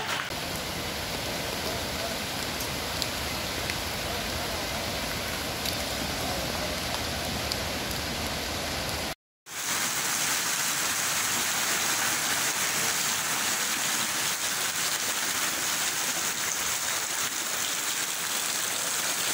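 Heavy rain pouring onto floodwater and foliage, a steady hiss. It drops out for a moment about halfway through, then goes on a little brighter.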